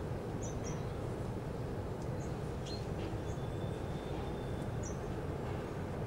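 Steady low background rumble with a few short, faint, high chirps from sparrows scattered through it.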